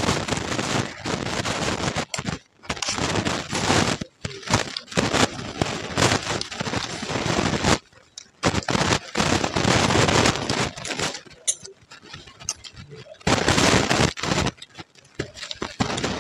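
Close-up crunching of a mouthful of puffed rice (muri) with ghugni being chewed, a dense crackling crunch in long bursts broken by short pauses.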